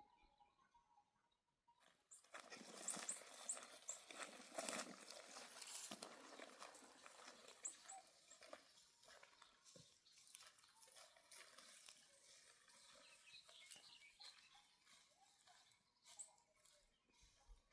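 Dry barley stalks rustling and crackling as they are pulled up by hand. The sound starts about two seconds in, is loudest for the next few seconds and then goes on more softly.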